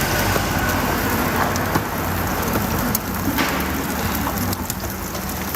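Food frying on a hot street-stall griddle, a steady crackling sizzle with a few sharp clicks of a metal utensil.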